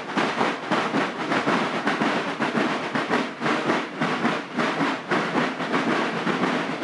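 Marching drums of a drum-and-bugle band beating a steady cadence, about four strokes a second, with no bugles sounding.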